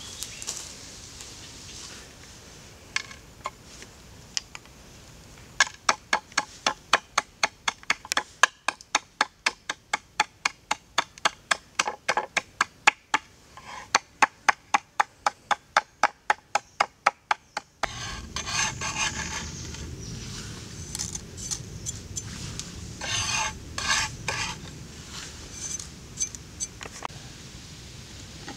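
Steady pounding with the butt of a wooden knife handle on a wooden cutting board, sharp knocks about three a second for some twelve seconds. Then a wooden spoon scraping and stirring spice paste on a wooden tray.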